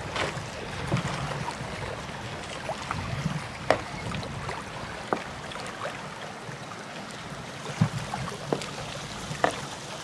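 Small waves washing and lapping against a breakwater, a steady splashing hiss with a few short, sharp slaps scattered through it.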